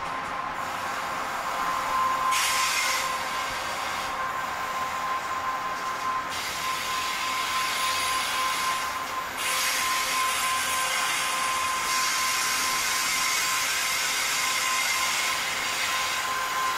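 Loaded coal hopper wagons rolling slowly past on the rails: continuous wheel-on-rail noise with a constant high-pitched whine, and a hissing edge that swells and fades every few seconds.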